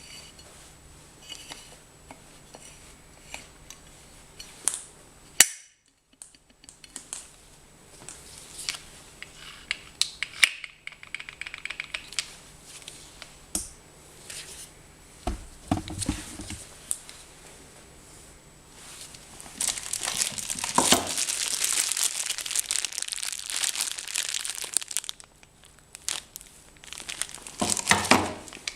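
Packaging of an angle grinder being handled: plastic and paper crinkling, with scattered clicks and knocks as the tool and box are moved. A longer stretch of steady crinkling starts about two-thirds of the way through.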